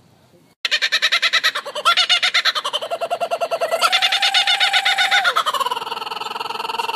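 Laughing kookaburra giving its full laughing call. It starts abruptly about half a second in as a rapid run of chuckling pulses, rises to a higher, more held note about midway, then slides down in pitch near the end.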